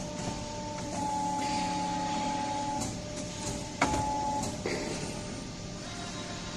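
HS 20 CNC automatic pipe bending machine running through its cycle: a steady motor whine that starts and stops in stretches, with one sharp clack nearly four seconds in and a lighter knock about a second later.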